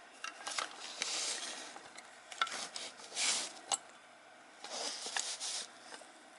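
Handling noise: short bursts of rubbing and rustling, with a few sharp light clicks as a small welded metal sculpture is held and turned close to the microphone.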